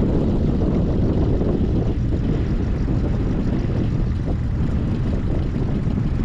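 Steady low rumble of a motorboat under way on the lake.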